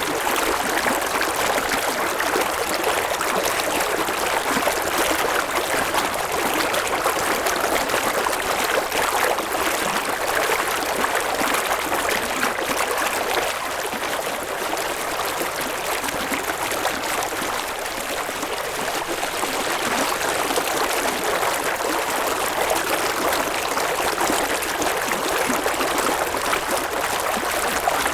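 A river flowing steadily over stones, a continuous rushing and burbling of water.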